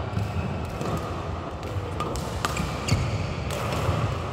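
Badminton rackets striking a shuttlecock during a rally, a few sharp cracks around the middle, among the thuds of players' feet on the court, echoing in a large sports hall.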